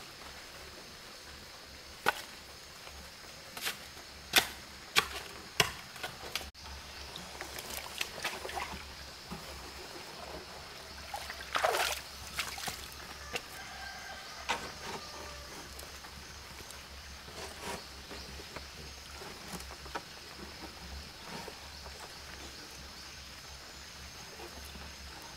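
Shovel digging into wet, stony soil: a run of sharp knocks as the blade strikes in, about six in the space of four seconds. Later comes a short scraping rustle and scattered small knocks as a corrugated cement sheet is carried over and set upright against the bank.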